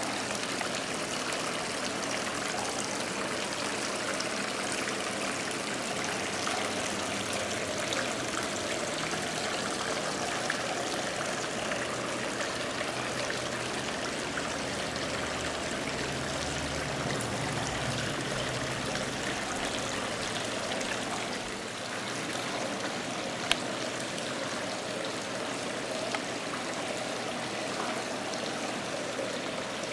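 Steady running water from the exhibit's artificial stream or waterfall feature, with a couple of faint sharp ticks late on.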